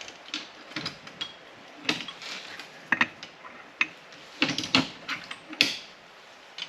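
Irregular metal clinks, knocks and short scrapes of hand tools working on the parts of a car's front strut assembly during disassembly.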